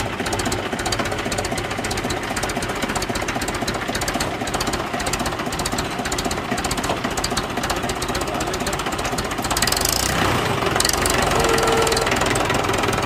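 Mahindra tractor diesel engine running with a steady knocking clatter, getting louder and heavier about nine and a half seconds in.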